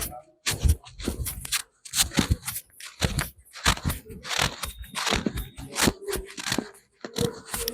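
Hands rubbing and working over a person's head and hair during a head massage, heard close up as a run of short, irregular rubbing strokes, a few a second, broken by two brief pauses.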